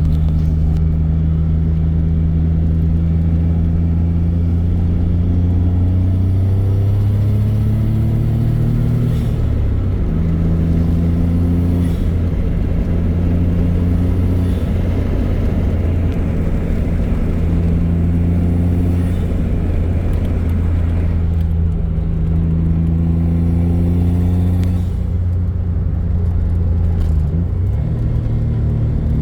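Small turbocharged engine of an older car running steadily, its note climbing twice and then dropping back abruptly, about a third of the way in and near the end.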